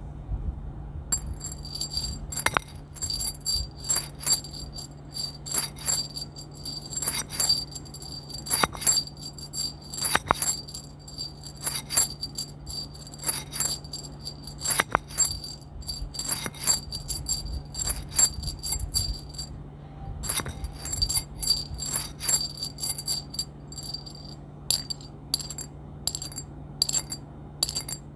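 ASMR trigger sounds: a run of sharp, uneven taps and clicks, about one or two a second, over a steady high jingling ring that breaks off for a moment about twenty seconds in, with a steady low hum underneath.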